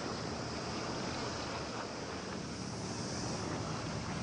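Steady wind and water noise, with a low, steady drone from a container ship passing close by.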